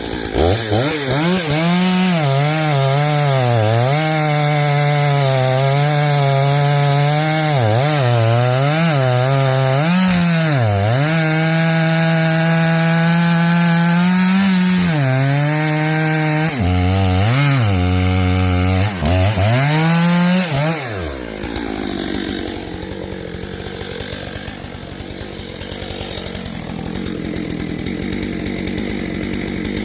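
Stihl MS 661 C two-stroke chainsaw running at high revs while cutting through an oak log, its pitch dipping and recovering over and over as the chain loads up in the cut. About twenty seconds in the engine note drops away, leaving a quieter rough noise.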